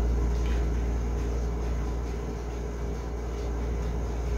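Steady low hum with an even hiss: room tone, with no clear event standing out.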